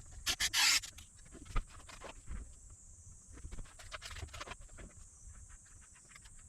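Bench repair handling noises: a short burst of scraping about half a second in, then scattered clicks and light scrapes of tools and parts, over a steady high hiss.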